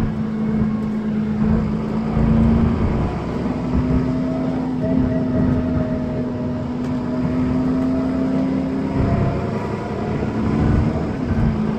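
Dennis Trident 2 double-deck bus under way, heard from inside the passenger saloon: its diesel engine and ZF automatic gearbox give a steady droning note with road noise underneath. The note breaks off briefly about three seconds in, climbs slightly over the next few seconds, then slides down near the end.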